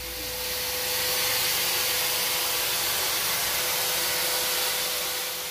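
Steady rushing hiss over a faint constant hum, fading out near the end.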